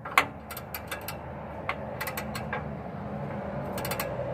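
Scattered sharp metallic clicks and clinks of hand tools working on the truck's bolts, the loudest about a fifth of a second in, over a low steady hum.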